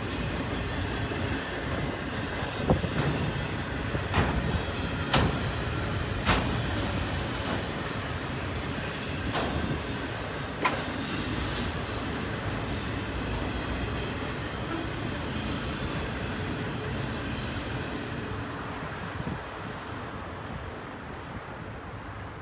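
Autorack freight cars rolling past on the rails: a steady noise of steel wheels on track, with several sharp knocks over the first eleven seconds. It fades near the end as the tail of the train moves away.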